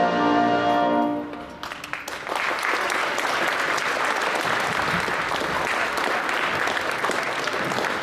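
The national anthem ends on a held final chord that fades out about a second in, then an audience applauds steadily through the rest.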